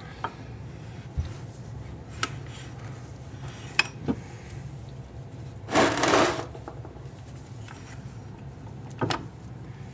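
Steel shift rail being slid and worked out of an NV3500 manual transmission's aluminium case: scattered light metal clicks and knocks as it moves through the case and shift forks, with a louder half-second burst of noise about six seconds in.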